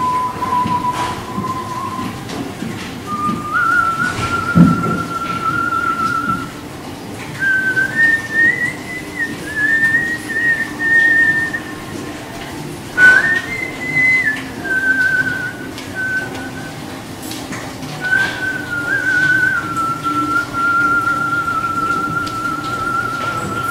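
A man whistling with his mouth in long held notes that step up and down in pitch, in several phrases separated by short pauses. A low thump sounds about four and a half seconds in.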